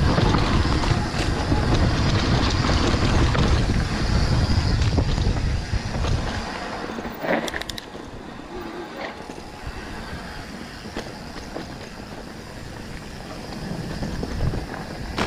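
Mountain bike ridden on a dirt singletrack: a loud rumble of tyres and wind on the microphone for about six seconds, then quieter rolling with scattered clicks and rattles from the bike.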